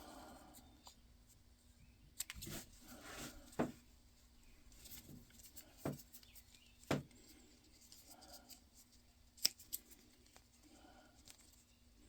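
Scissors cutting through bicycle inner-tube rubber to cut out a gasket: quiet, separate sharp snips every second or few, with faint handling rustle between.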